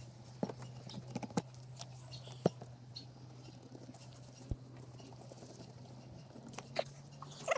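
Filleting knife cutting along a whole dolphinfish on a plastic cutting board: scattered light clicks and taps from the blade and hands working the fish, over a steady low hum.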